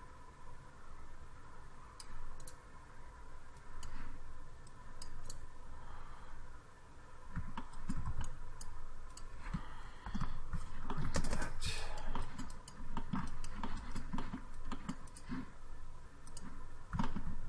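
Computer keyboard keys and mouse buttons clicking irregularly, busiest in the second half, with a faint steady tone underneath.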